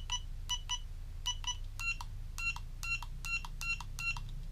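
Beeps from the Aerix Vidius toy drone's handheld transmitter as its buttons are pressed. The beeps are short and electronic: quick pairs at first, then a run of slightly higher single beeps about every 0.4 s. They are the controller confirming mode and trim button presses.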